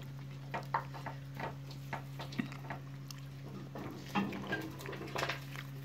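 Fingers picking through rice and meat on a metal tray, making soft, irregular clicks and wet squelches over a steady low hum.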